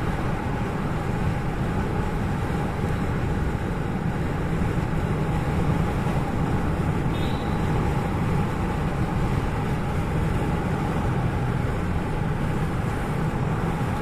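A car driving, with steady engine and tyre road noise heard from inside the cabin.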